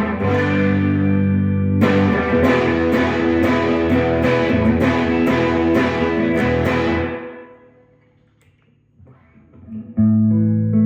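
1960s Klira Triumphator electric guitar with three Schaller pickups, chords strummed over and over and left to ring, dying away about seven seconds in. After a short near-quiet gap with a few light string noises, a new chord rings out near the end.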